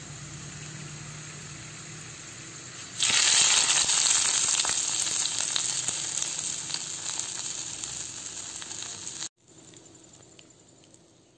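Hot-oil tempering of garlic, curry leaves and mustard seeds sizzling, quietly at first; about three seconds in it hits the curry with a sudden loud sizzle that slowly dies down, and after a cut near the end a fainter sizzle fades out.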